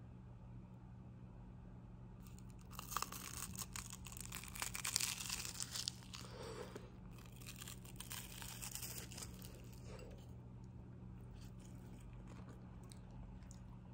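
Flaky pastry shell of a Portuguese egg tart crackling and crunching as it is pulled apart by hand: a dense run of small crackles starting about three seconds in, strongest around five seconds, and fading out by about ten seconds. A low steady hum lies underneath.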